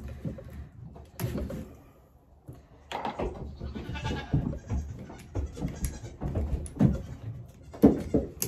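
Goats bleating several times, with a short lull about two seconds in, mixed with a few sharp knocks and clatter of hand work at a wooden bench.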